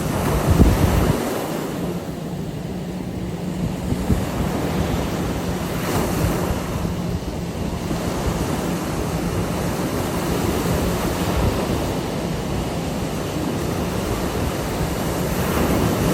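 Ocean surf breaking and washing on a beach, a continuous rush that swells about a second in, again around six seconds and near the end, with wind buffeting the microphone.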